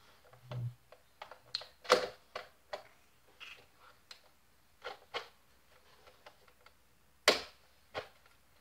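Plastic clicks and clacks of a Nerf blaster being handled as its trigger and buttons are worked: a dozen or so scattered clicks, with sharper clacks about two seconds in and near the end. No shot goes off; the blaster is failing to fire.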